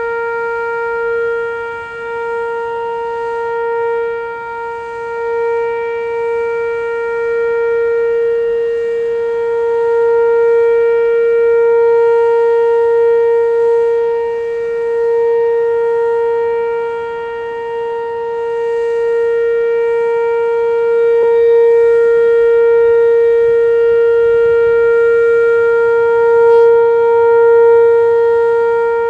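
Whelen WPS-2807 electronic tornado warning siren sounding a steady tone in a test. The pitch holds level while the loudness swells and dips a little.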